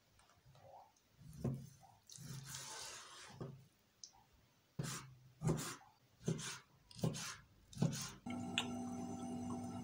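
Kitchen knife cutting raw chicken breast on a plastic cutting board: about eight separate knocks of the blade against the board. A little past eight seconds a steady hiss with a low hum takes over abruptly.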